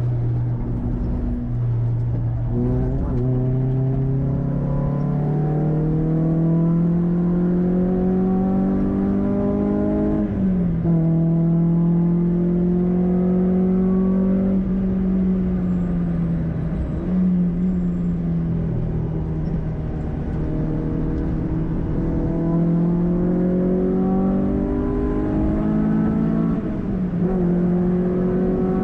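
Renault Clio 182's 2.0-litre four-cylinder engine, with a cone filter intake, heard from inside the cabin under hard acceleration. The engine note climbs through the revs, drops sharply at an upshift about ten seconds in, dips briefly around seventeen seconds, then climbs again to another upshift near the end.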